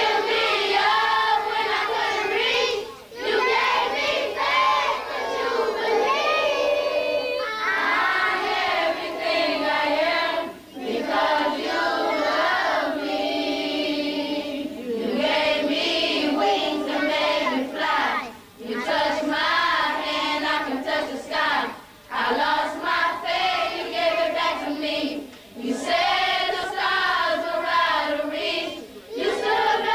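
A group of children singing a song together, phrase after phrase, with brief pauses between the phrases.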